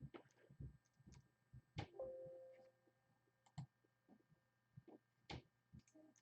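Near silence: faint scattered clicks and light taps, with a faint short tone that fades away about two seconds in.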